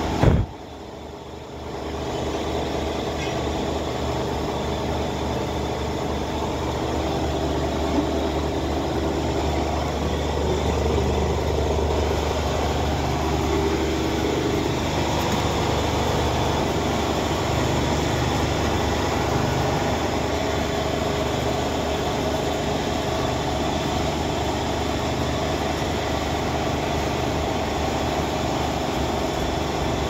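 Electric flour mill (grain chakki) running steadily, its motor and belt-driven grinder giving a continuous hum. A single sharp knock comes right at the start.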